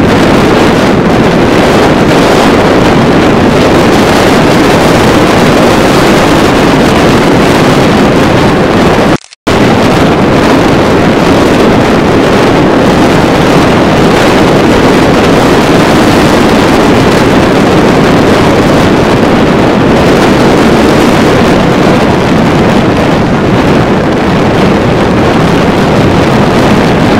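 Strong wind buffeting the microphone over breaking surf, a loud steady rush that cuts out for a moment about nine seconds in.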